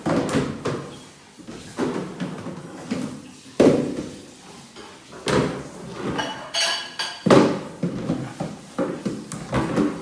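A series of knocks and thumps, like something banging against a door or furniture, with the loudest hits about three and a half, five and seven seconds in, and a short high squeak just before the last big thump.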